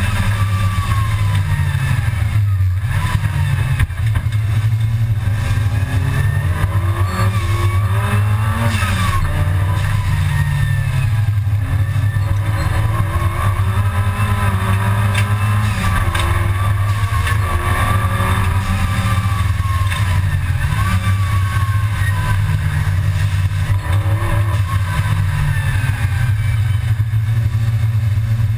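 Supercharged Volkswagen Golf GTI G60 (Mk II) race car at racing speed, heard from inside its cabin. The engine note climbs and drops again and again as it accelerates, shifts and brakes, over a loud steady low rumble.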